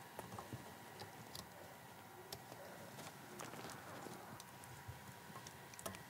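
Faint, scattered small clicks and rustling as stiff copper wires are handled and pushed into small push-in wire connectors.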